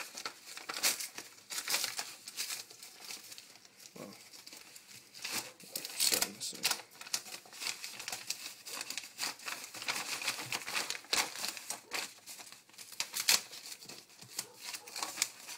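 Plastic mailing bag being torn open and handled by hand: irregular crinkling and rustling, with several louder crackles along the way.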